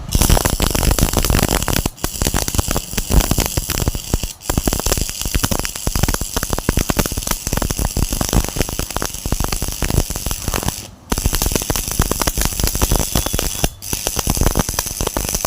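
Electric arc welding: the arc crackles and sizzles steadily, with a few brief breaks where it goes quiet for a moment.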